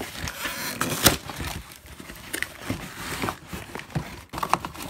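Cardboard box flaps and packing being handled, rustling and scraping, with a sharp knock about a second in and a few smaller knocks after it.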